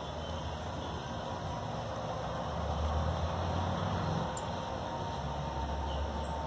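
Steady low rumble of vehicle traffic, a little louder partway through. A few faint, short high chirps come in the last couple of seconds.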